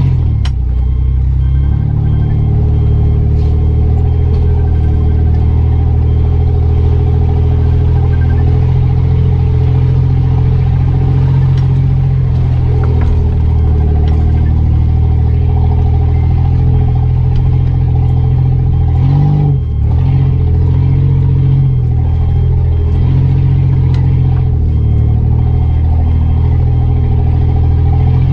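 A Mitsubishi Pajero's engine runs steadily under load, heard from inside the cab, as it backs up towing a stuck pickup on a tow strap. The revs dip and recover briefly about two-thirds of the way through.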